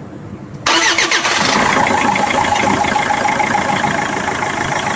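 Land Rover Freelander TD4 four-cylinder turbodiesel starting abruptly a little under a second in, then running steadily at idle on its newly fitted high-pressure fuel pump.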